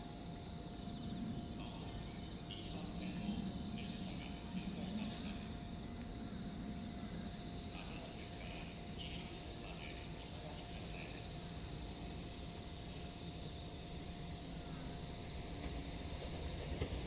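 Insects trilling steadily in several pitches, with a faint low rumble from the approaching train. Right at the end the rumble grows louder, with a first knock from the wheels.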